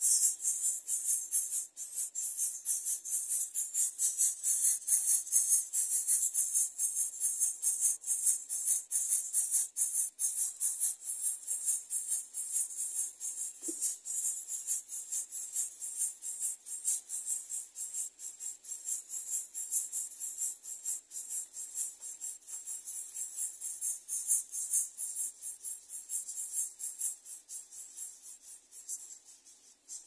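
Insect chorus: a dense, rapid, high-pitched pulsing buzz that fades over the last few seconds.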